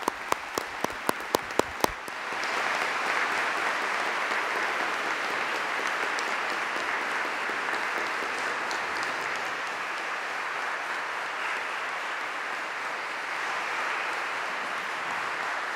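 Congregation applauding: a few distinct loud claps, about four a second, for the first two seconds, then the whole congregation joins in steady applause.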